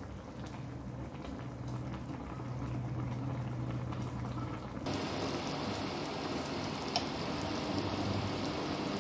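A pan of chicken and pickled mustard green soup bubbling at a boil. The bubbling grows louder and crisper about five seconds in.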